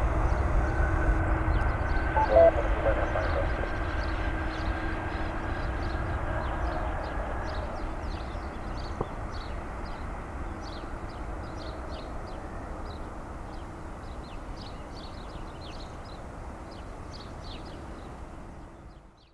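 A Boeing 787-8's Rolls-Royce Trent 1000 turbofans at takeoff power, a steady low jet rumble. The rumble fades gradually as the airliner moves away down the runway and climbs out.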